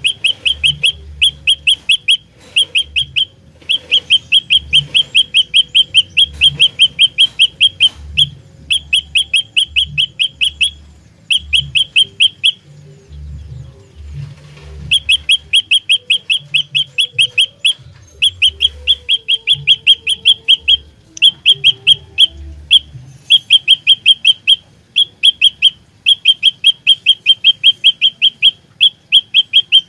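Olive-backed tailorbird singing: loud, rapid runs of sharp, high, repeated notes in bursts of one to three seconds, with a pause of about two seconds midway.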